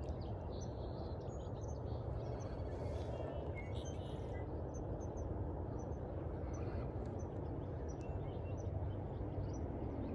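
A small bird chirping in short, high, repeated notes from about four seconds in, over a steady low background rumble.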